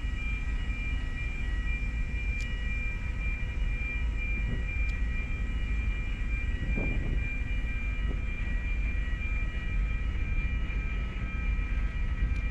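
Steady low rumble and hum of the ferry Volcán de Tamadaba's engines and deck machinery, heard from the open upper deck, with several constant high whining tones over it.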